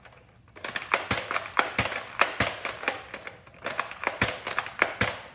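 A rapid, uneven run of hard plastic clicks and clacks from a Nerf double-cylinder blaster, a Zombie Strike Flipfury, being worked by hand as its priming handle is pulled back and pushed forward. It starts about half a second in and stops near the end.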